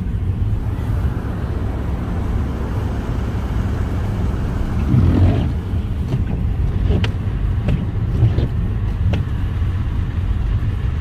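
Road noise inside a moving car: a steady low rumble of engine and tyres on a slushy, snowy road. It swells louder about halfway through, and a few faint ticks come in the second half.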